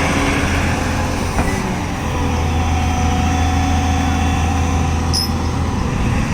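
Heavy diesel engine running steadily with a low hum, with a single click a little over a second in and a brief high squeak about five seconds in.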